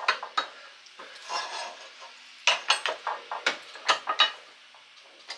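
Irregular metal clinks and taps of hand tools on a bolt and its bracket, with a quick cluster of sharp clicks a couple of seconds in, as a bolt is worked back out.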